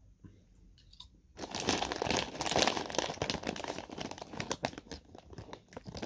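Plastic banana chip bag crinkling loudly as it is handled and shifted, starting about a second and a half in and lasting about four seconds, with a few faint chewing crunches before it.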